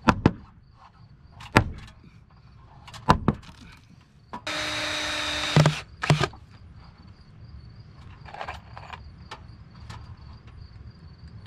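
Four sharp knocks in the first three seconds, then a power tool runs steadily for just over a second, followed by one more knock. These are carpentry sounds from fastening a new rim-joist board into place.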